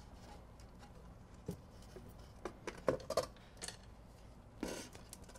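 Light clicks and knocks as an S-100 backplane circuit board is worked loose and lifted out of a computer chassis, with a quick cluster of several clicks about three seconds in.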